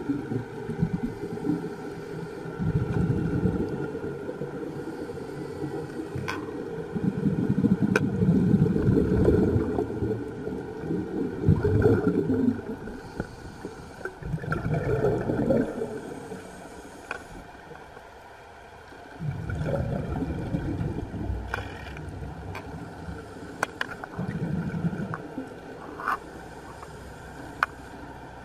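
Scuba regulator breathing underwater: bursts of bubbling exhaust every few seconds, with quieter gaps between, and scattered sharp clicks.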